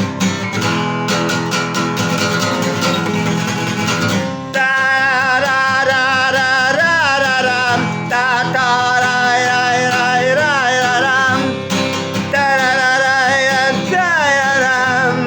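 Instrumental break of a song: guitar chords strummed, then about four and a half seconds in a lead melody with pitch bends and vibrato comes in over them.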